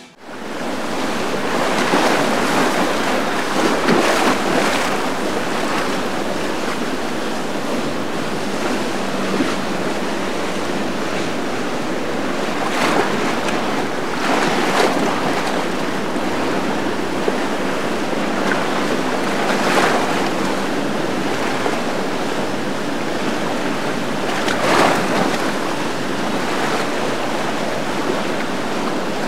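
Rough, churning canal water rushing and splashing under boat wakes, with wind buffeting the microphone. It is a steady rush that swells louder every few seconds as the waves break.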